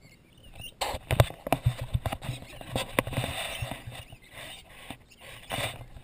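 Scraping, rustling and irregular knocks of a handheld wide-angle camera being moved about, starting about a second in.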